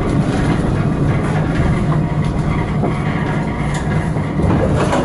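Tram running along its track, heard from the driver's cab: a steady rumble with a low hum and a few faint clicks.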